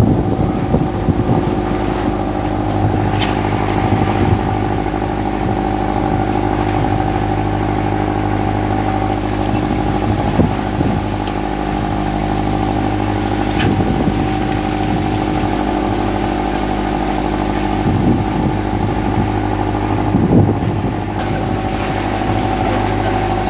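Fishing boat's engine running steadily at a constant pitch, with a few scattered knocks.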